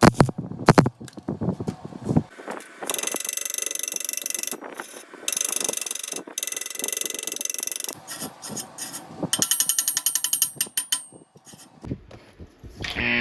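Electric arc welding on galvanized steel pipe: the arc buzzes and crackles in several runs of a few seconds each, stopping and restarting, after a few sharp knocks at the start.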